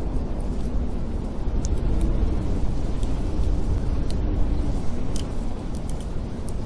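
Snowstorm wind blowing with a deep, steady rumble and a faint wavering howl, while a wood fire crackles with scattered sharp pops.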